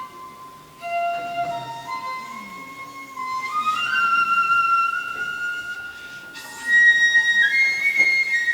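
Solo flute playing a slow melody of held notes that step upward in pitch, louder in the last second and a half.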